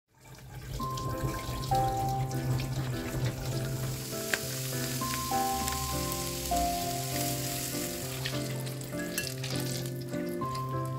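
Background music with held melody notes over a steady bass line, mixed with the hiss and crackle of food frying in hot oil.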